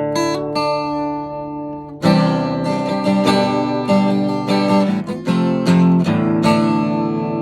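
Acoustic guitar playing: single picked notes at first, then full chords strummed in a steady rhythm from about two seconds in.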